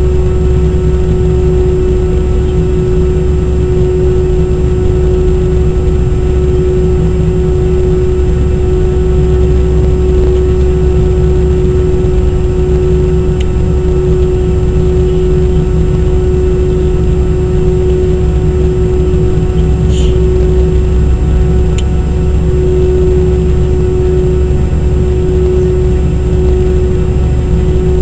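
Airbus A319-100's turbofan engines heard from inside the cabin during the climb after take-off: a loud, steady roar with one steady tone over a deep rumble. Two faint clicks about two-thirds of the way through.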